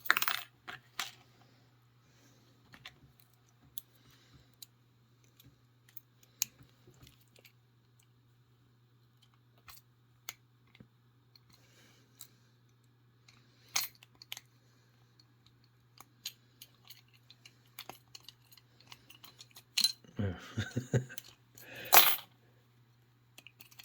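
Lock pick and tension wrench working in the worn keyway of a discus padlock: scattered small metallic clicks and scrapes over a faint steady low hum. Near the end, a run of louder metallic clattering with one sharp knock.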